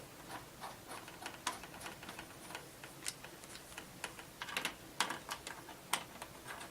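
Small M3 bolts being fitted and screwed through an acrylic electronics base into brass spacers: a scatter of light, irregular clicks and taps from the bolts and tool, a few a second with small clusters.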